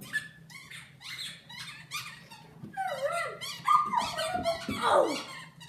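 German Shepherd and child at rough tug-of-war play: a run of short squeaky cries, several falling in pitch, busiest and loudest from about three to five seconds in.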